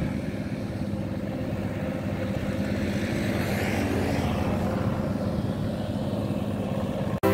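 An engine running steadily, swelling a little around the middle, then cutting off abruptly near the end.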